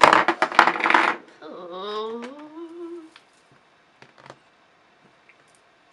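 A loud burst of rustling and clicking, lasting about a second, as products are handled, then a woman humming a short note that slides upward.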